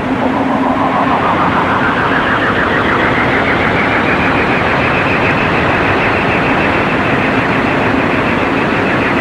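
Science-fiction flying saucer take-off sound effect: a steady, loud roar of noise with a fluttering whine that rises in pitch over the first three or four seconds and then holds, over a low steady hum.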